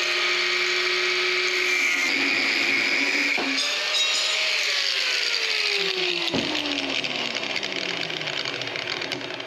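Angle grinder with a cutting disc cutting steel bar, its motor running at a steady pitch. About four and a half seconds in the motor pitch falls steadily as it winds down, with a single sharp clank about six seconds in.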